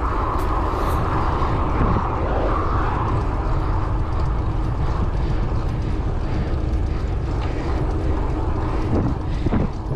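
Wind rushing and buffeting over a GoPro's microphone while riding a road bike at speed, a steady heavy low rumble.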